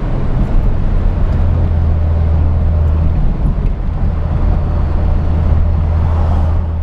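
Freshly rebuilt 2009 Honda Civic Si's 2.0-litre four-cylinder engine running steadily on a light cruise, heard from inside the cabin as a steady low hum with tyre and road noise over it.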